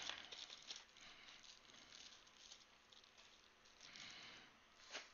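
Faint rustling and light rattling of small hardware parts being rummaged through by hand, with a soft swell of rustle about four seconds in and a sharper click near the end.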